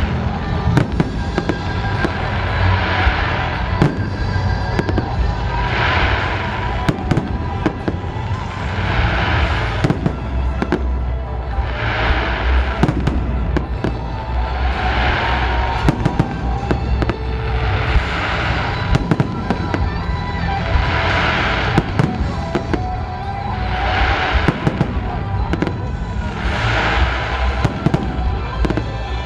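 Fireworks display: shells bursting in quick succession, several sharp bangs a second throughout.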